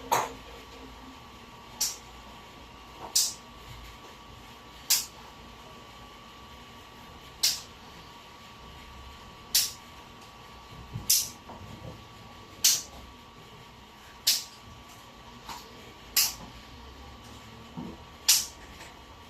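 About a dozen short, sharp clicks at uneven gaps of one to two seconds, over a faint steady hum.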